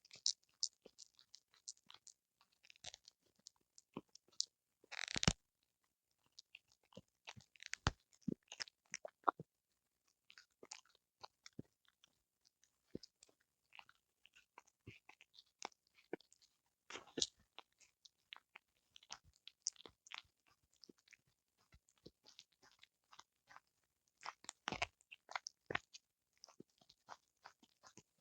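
A small Pomeranian–Spitz mix dog chewing and crunching a whole conger eel. The crunches come in irregular, quick clicks, with a few louder bites.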